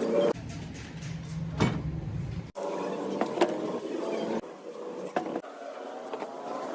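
Workshop machining and tool sounds from an engine overhaul, in short clips cut together: a low machine hum for about two seconds, then a steady whine with scattered metallic clicks and taps.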